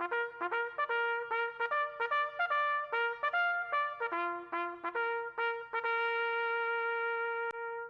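Brass music, trumpet-like: a quick run of short, detached notes ending on one long held note that stops near the end.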